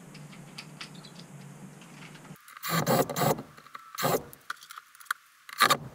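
Cordless drill drilling pilot holes into a mounting block for a bracket's screws, running in short bursts: the first about two and a half seconds in, another near four seconds and one near the end.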